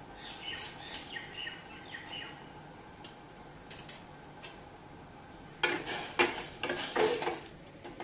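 A spoon stirring papaya pieces in beetroot-and-sugar syrup in a pan, clattering and scraping against the pan from a little past halfway through. Before that, faint bird chirps.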